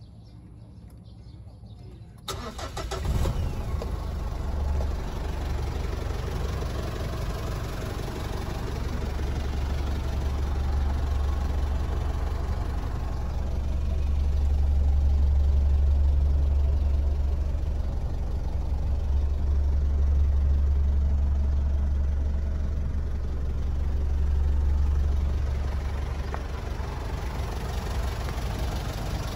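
Mitsubishi Strada Triton's diesel engine starting suddenly about two seconds in, then running at idle with a deep, steady low hum that swells and eases a few times. The seller calls the engine strong, with no blow-by.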